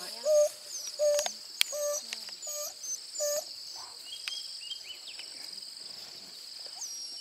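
African wild dog giving a run of five short, even-pitched hoo calls in about three seconds, the call that summons the rest of the split-up pack to the kill. A steady high insect drone and small bird chirps run underneath.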